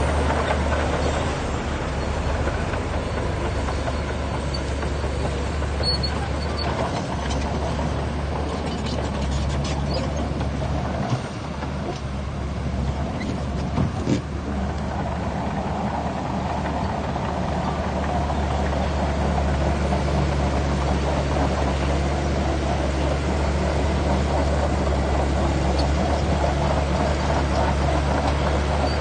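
Heavy diesel engine of earthmoving machinery running steadily with a deep drone, with a short dip and a couple of brief knocks near the middle.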